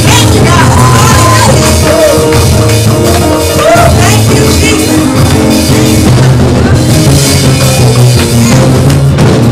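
Loud live gospel praise music from a church band: keyboard and drums over a steady bass, with a voice singing over it.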